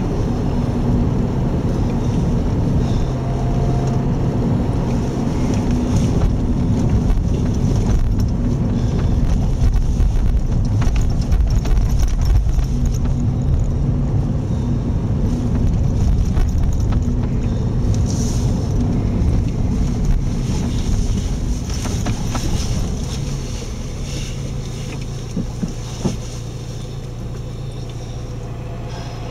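Car driving on a narrow country road: a steady engine hum and tyre rumble heard from inside the cabin, becoming quieter a few seconds before the end.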